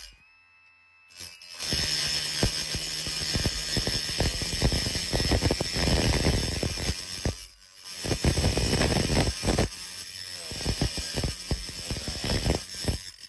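Power tool fitted with a tile-removal bit working against ceramic tile, a steady loud grinding and rattling with many sharp cracks and clatters as the tile breaks away. It stops briefly near the start and again about halfway through.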